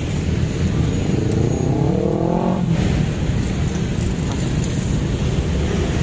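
Loud, steady low rumble of vehicles passing close by. About a second and a half in, one engine rises in pitch as it speeds up, then cuts off near the three-second mark.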